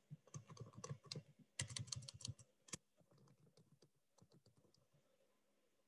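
Faint typing on a computer keyboard: a quick run of keystrokes for about three seconds, busiest near the middle, then a few scattered, softer taps.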